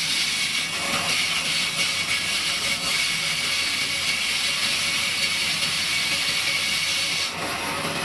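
Vertical band saw cutting through a stack of corrugated cardboard air-cooler pads, a steady hissing rasp. Near the end the hiss suddenly becomes thinner and a little quieter.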